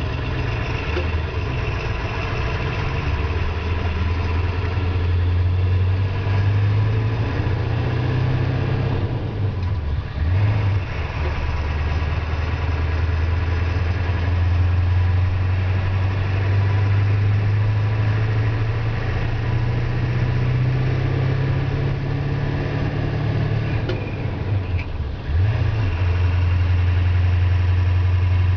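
International 4700 medium-duty wrecker's diesel engine pulling the truck along, heard from the cab. The engine note climbs steadily and breaks twice, about ten seconds in and again near the end, dipping briefly and picking up again as the truck shifts gears.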